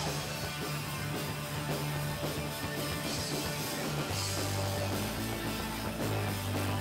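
Live punk rock band playing electric guitars, bass guitar and drums, the low bass note stepping down about four seconds in.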